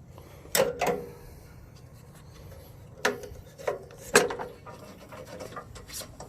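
Folding metal RV entry steps being set down against the van, giving a series of knocks and clunks, several with a short metallic ring.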